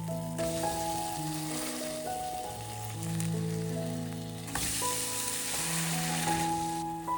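Food sizzling as it fries in a pan, the sizzle growing louder past the middle and easing off near the end, under background music with a slow melody.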